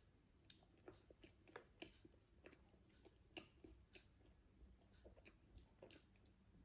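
Faint chewing: a person eating a piece of Snickers bar with her mouth closed, giving soft, irregular mouth clicks, a few each second.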